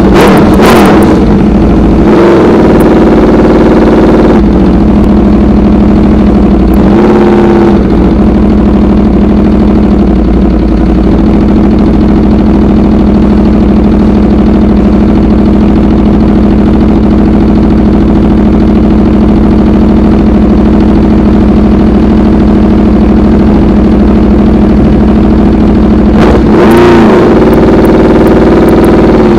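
Aprilia RSV4 Factory V4 engine idling through an SC-Project CRT exhaust, heard loud and close. Its revs rise and fall a few times in short throttle blips, the largest near the end.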